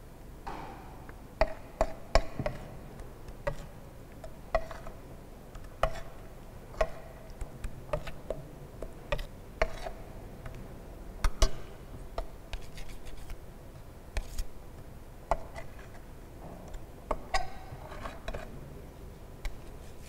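Steel spatula scraping and tapping on a glass plate as moist soil is worked into a paste for the liquid limit test: irregular clicks and short scrapes about once a second, a few of them sharper knocks with a brief ring.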